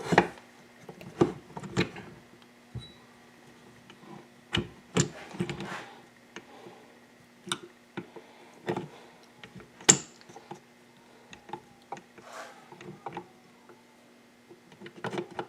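Irregular metal clicks, taps and knocks of engine parts and tools being handled while the shift drum is fitted into a Yamaha WR426F crankcase half, over a faint steady hum.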